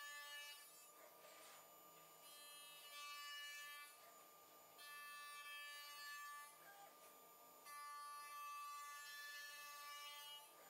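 Near silence, with faint background music of held tones that comes and goes in phrases of a couple of seconds.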